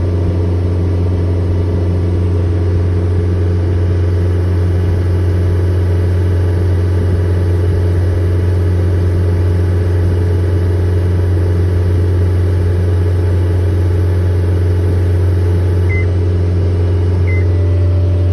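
John Deere 331G compact track loader's diesel engine running at a steady speed during hydraulic calibration, heard from the cab. Two short high beeps from the machine's controls come near the end.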